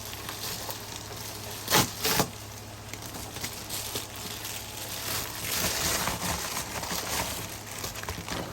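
Lock packaging being opened by hand: crinkling and rustling with scattered small clicks. Two sharp snaps about two seconds in, and a louder stretch of rustling a few seconds later.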